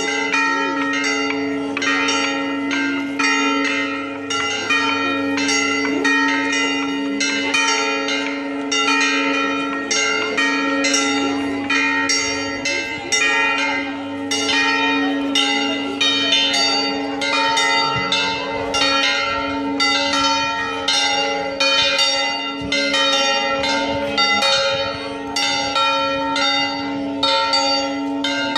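Church bells rung continuously, several bells struck in quick succession a few times a second, their tones ringing on between strikes.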